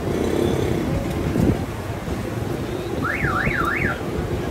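Steady street din with traffic rumble. About three seconds in, an electronic warbling tone sweeps up and down three times within a second, like a car alarm or a vehicle's siren-style horn.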